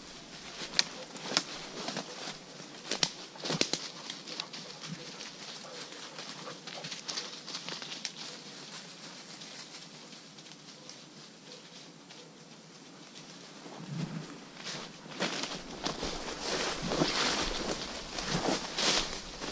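Footsteps crunching through dry leaf litter and brushing through woodland undergrowth, with several sharp cracks in the first few seconds, quieter in the middle, then louder, steady rustling over the last five seconds.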